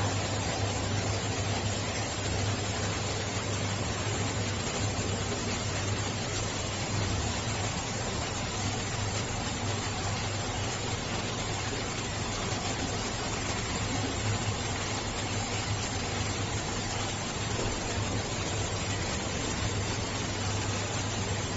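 Steady aquarium running noise: bubbling aeration and water hiss with a constant low hum from the pump equipment.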